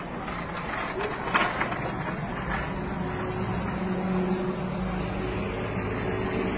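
A nearby vehicle engine runs with a steady low hum under a constant rumbling noise. There is a short knock about a second in.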